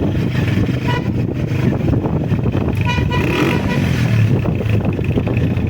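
Honda CG125's single-cylinder engine running steadily under way, with a vehicle horn tooting briefly about a second in and again about three seconds in.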